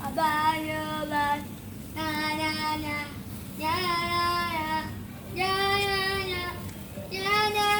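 A child's voice singing a run of five long held notes, each about a second long with short breaks between, stepping upward in pitch.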